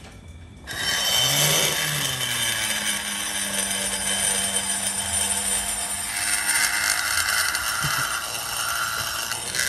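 Handheld electric rotary grinder spinning up about a second in, then grinding steadily into the metal of a motorcycle cylinder head's port, a high-pitched grinding whine. This is the porting of the head.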